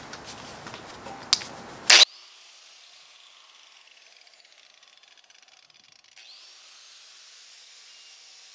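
Angle grinder with a braided wire cup brush, stripping paint from cast iron. After a clattering start with a sharp knock about two seconds in, it is heard only faint and thin: a whine falling in pitch, then rising again about six seconds in over a steady hiss.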